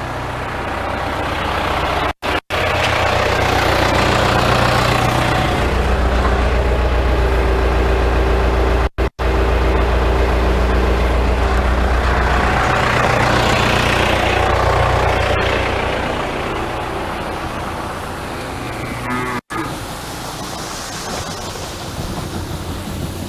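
An engine running steadily with a low drone while the grain bin is raised, over the grain auger turning as it carries barley up. The engine grows louder through the middle and eases off toward the end, and the sound cuts out for an instant three times.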